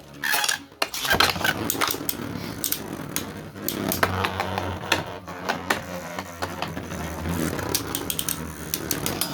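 3D-printed Beyblade spinning tops whirring in a plastic stadium, with a steady hum and frequent sharp clicks as they knock into each other and the stadium walls.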